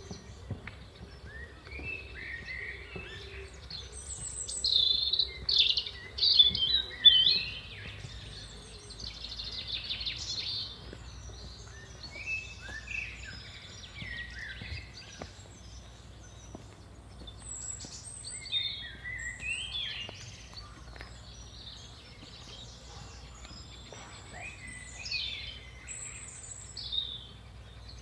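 Several birds chirping and singing in short calls and trills, loudest in a burst of close calls about four to seven seconds in, over a faint steady low rumble.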